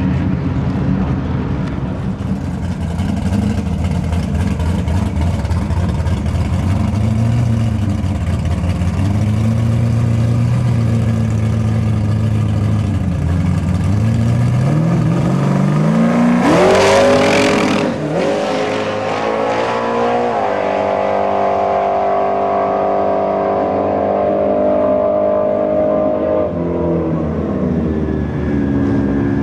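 Big-block, nitrous Ford Mustang drag car's engine lopes and blips at low revs, then about 16 seconds in it launches with a sharp rise in revs. It shifts gears twice and holds high revs down the track before dropping off as the driver lifts near the end.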